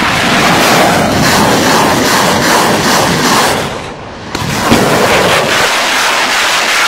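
Truck-mounted multiple rocket launchers firing a salvo: a loud, continuous rush of rockets leaving the tubes in quick succession. The sound drops briefly about four seconds in, then the firing resumes.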